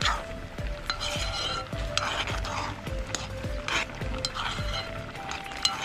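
Metal spoon stirring a thick stew in a metal cooking pot, scraping and clicking against the pot's sides and bottom at irregular intervals.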